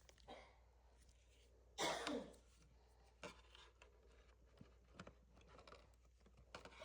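Mostly quiet, with a short cough about two seconds in and a few faint clicks of the refrigerator's plastic dispenser display assembly being eased out by hand.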